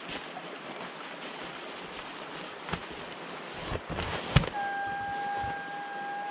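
A few knocks and clicks of handling, the sharpest about four and a half seconds in, then a small electric pump starts up with a steady high whine, inflating a packraft.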